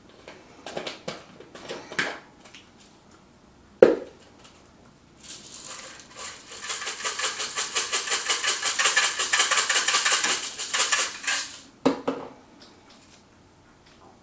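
Dried bacon bits rattling in their container as it is shaken, a rapid run of small rattles lasting about six seconds. A single sharp click comes shortly before it, with a few light clicks and a knock around it.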